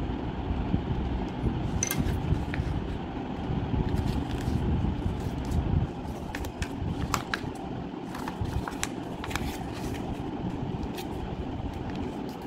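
Paper being folded and creased by hand, heard as a few short crackles and taps, over a steady low rumble of background noise that drops a little about six seconds in.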